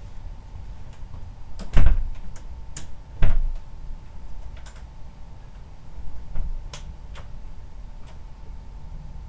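Two loud sharp knocks about a second and a half apart, with several fainter clicks scattered after them, over a steady low rumble and a faint steady hum.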